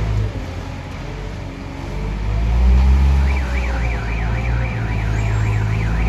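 Diesel engine of a self-loading concrete mixer running, pulling harder and louder about two seconds in. From about three seconds a warbling warning alarm sweeps up and down about three times a second over the engine.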